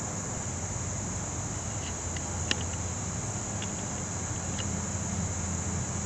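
Steady high-pitched insect chorus over a low steady rumble, with a few short high ticks in the middle, the sharpest about two and a half seconds in.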